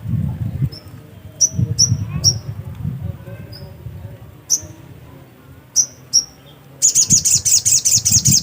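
Sogok ontong songbird calling with short, sharp, high chirps at irregular intervals. Near the end these break into a fast twittering run of about eight notes a second.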